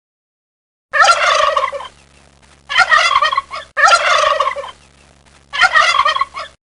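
Turkey gobbling four times, each a rapid warbling call about a second long.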